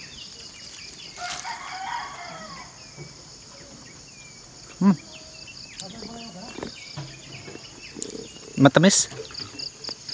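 Countryside ambience: a steady high-pitched insect drone with chickens and a rooster in the background and scattered bird chirps. A brief louder sound close by, about nine seconds in.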